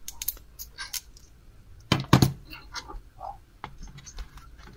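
Small sharp clicks and handling noises from working on a network cable with hand tools, with a loud double clack about two seconds in.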